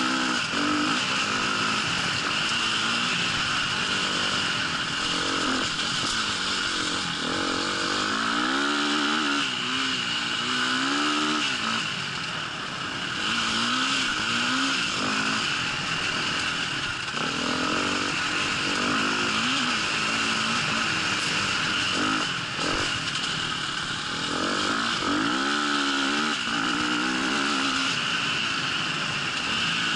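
Dirt bike engine running under way on a trail, its revs rising and falling over and over as the throttle is opened and closed through the ride.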